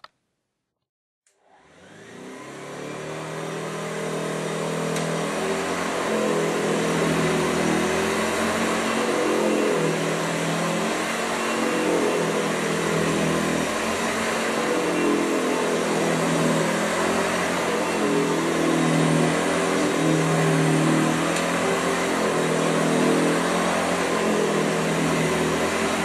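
A c.1929 Hoover Model 575 upright vacuum cleaner, with its single-speed 235-watt motor, clicks on about a second in and spins up over a couple of seconds. It then runs steadily, a quiet motor purr under the growl of the agitator on the carpet, the tone wavering as the cleaner is pushed back and forth.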